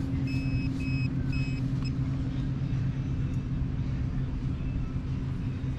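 Handheld metal-detecting pinpointer beeping three times in quick succession, short high beeps as it is probed into the sand hole, the sign of a metal target close by. A steady low rumble runs underneath throughout.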